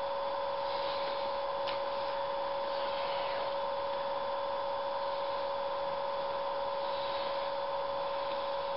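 Steady electrical hum with a constant whine, unchanging in level, and a faint click a little under two seconds in.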